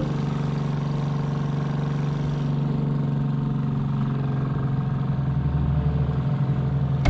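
Small motorboat engine running steadily at speed, with water rushing and spraying along the hull.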